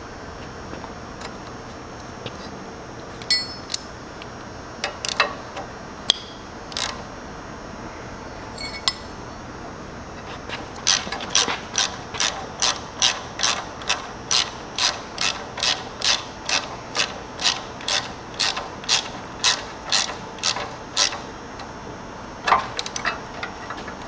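Socket ratchet clicking as a bolt on the tiller's tine hub is tightened: a few scattered clicks, then a steady run of strokes at about three a second for some ten seconds.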